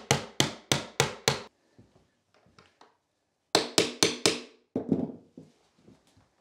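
Hammer blows in quick runs of about three a second: five strikes, a pause of about two seconds, then four more and a few lighter taps, driving 2-inch finishing nails into pre-drilled tongue-and-groove pine floorboards and setting them with a nail punch.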